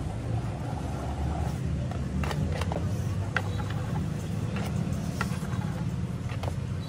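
A steady low rumble, with scattered light clicks and taps of a spatula spreading whipped cream on a cake and knocking against the turntable and bowl.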